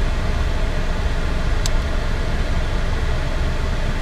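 Steady rumble and rushing air inside a parked car's cabin, from the idling engine and the air-conditioning fan. One short, high click comes about one and a half seconds in.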